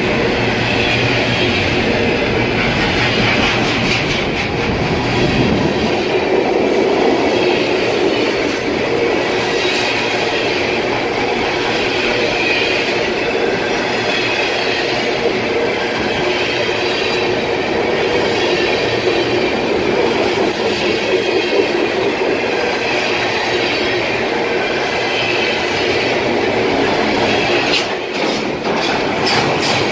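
Freight train of container flatcars rolling steadily past at close range: steel wheels rumbling and clattering on the rails, with a thin high wheel squeal over it and a quick run of clicks near the end.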